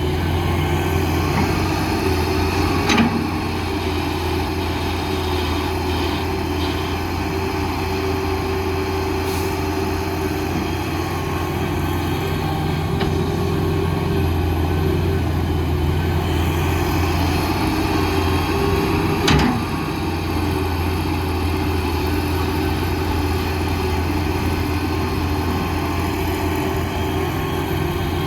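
Heavy diesel earthmoving machinery running with a steady, even engine hum. Two short knocks stand out, one about three seconds in and one a little past halfway.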